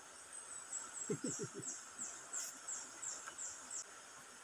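An animal calling faintly in the forest: a regular series of short, very high, falling chirps, about two or three a second, that stops near the end. A quick cluster of four low, brief sounds comes about a second in.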